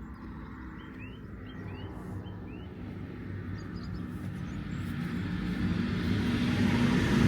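A motor vehicle approaching, its engine hum and road noise growing steadily louder, with a few short bird chirps in the first three seconds.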